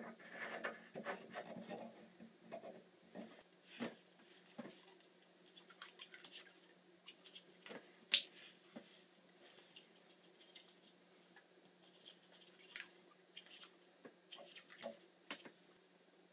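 Hands working small plumbing fittings: a brass coupling handled on the stub-out, then Teflon tape pulled from its roll and wrapped around pipe threads. Faint, irregular rustles, crinkles and small clicks, with one sharper click about eight seconds in.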